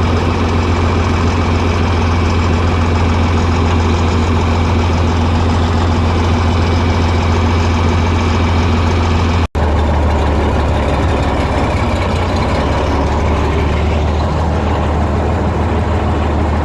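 Tractor engine running steadily. About halfway through the sound cuts out for a moment, and afterwards the engine hum is lower in pitch.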